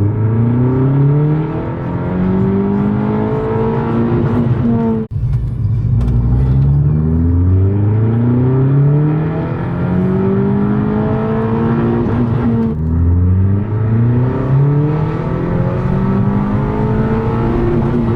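Vauxhall Adam S's 1.4-litre turbo four-cylinder, stage 1 remapped and breathing through a custom cat-back exhaust, revving up under full throttle in long pulls, its pitch climbing steadily. The sound cuts off abruptly about five seconds in and again near thirteen seconds, each time followed by another rising pull.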